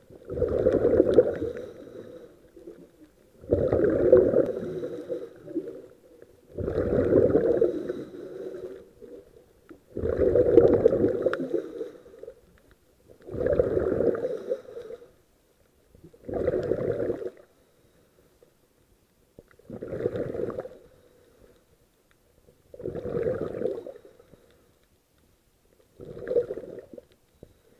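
Scuba diver breathing through a regulator underwater: a rush of exhaled bubbles about every three seconds, nine in all, the bursts growing shorter and fainter toward the end.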